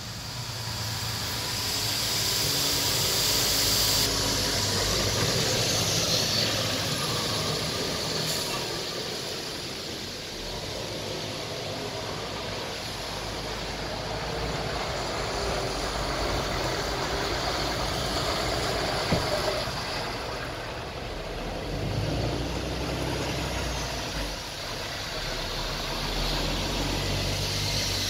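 Polaris Ranger 150 EFI's small single-cylinder four-stroke engine idling steadily.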